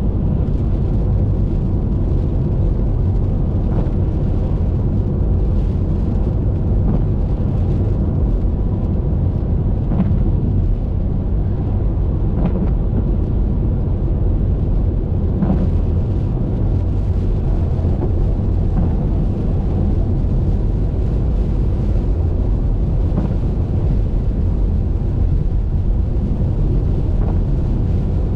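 Steady low rumble of a car driving on a wet highway: road and wind noise, with a few faint ticks of raindrops hitting the windshield.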